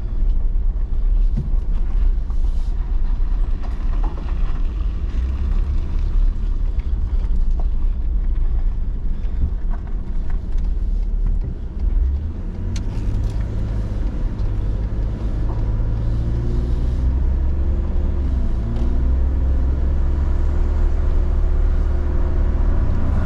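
Truck engine and road noise: a steady low rumble while driving with a loaded car trailer in tow. About halfway through, the engine note becomes more pronounced and its pitch shifts slightly up and down.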